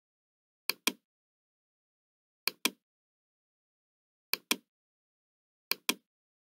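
Computer mouse clicking: four quick pairs of clicks spaced a second and a half to two seconds apart, with dead silence between.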